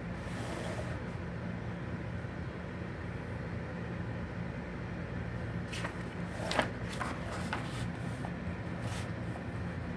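Glossy magazine pages being turned and handled by hand: a soft swish of paper right at the start, then a cluster of crisp paper rustles and clicks about six to nine seconds in. A steady low hum runs underneath.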